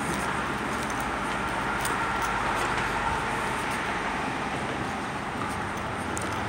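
Steady background rumble and hiss with a faint high hum, without change in level, and a few light clicks.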